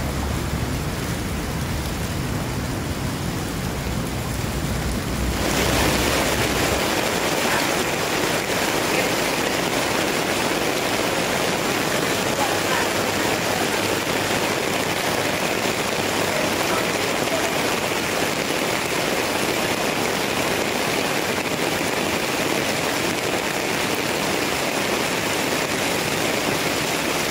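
A low engine rumble at first, then from about five seconds in a steady, dense hiss of heavy rain falling.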